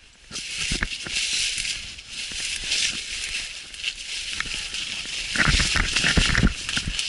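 Rustling and crackling of dry brush and brambles, with scattered twig-like clicks and a cluster of dull thumps about five and a half seconds in.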